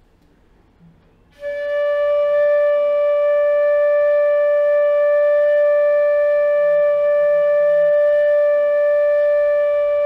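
25-inch G-natural bamboo flute (bansuri) holding one long, steady note, Pa of the G scale, which sounds as D5, for about nine seconds, starting about a second and a half in. It is blown as a tuning check of that note.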